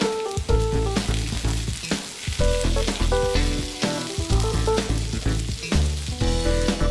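Diced potatoes with onions and peppers sizzling in oil in a frying pan as they are turned with a slotted spatula. Background music with a bass line and beat plays throughout.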